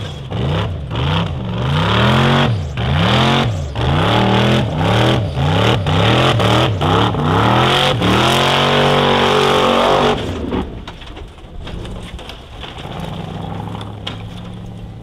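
Formula offroad race car's engine revving hard, the revs swinging up and down in quick swells a bit more than once a second. It then holds high and climbing for about two seconds, and about ten seconds in the throttle is cut sharply, leaving the engine running low and much quieter.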